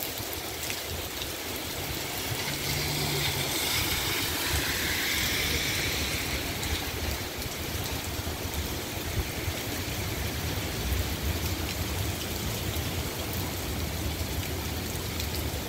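Heavy rain pouring onto a city street as a steady hiss. A few seconds in, a brighter swell of hiss rises and fades, like tyres running through water on the wet road.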